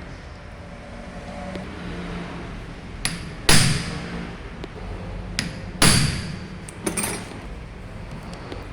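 Metal knocks during the stripping of a diesel distributor-type injection pump: two loud strikes about two seconds apart, each ringing on briefly, with a few lighter clicks between and after them, over a steady background hum.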